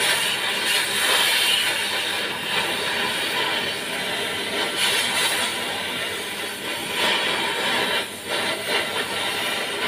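Stick welding arc sizzling steadily as a rod is run on the cast iron rear axle housing of a tractor, with a short drop in level about eight seconds in.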